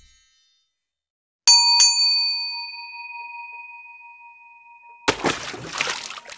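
Sound effects of a subscribe-button animation. A bell-like ding is struck twice in quick succession about a second and a half in, and its ring fades slowly over the next few seconds. Near the end comes a loud burst of rushing noise.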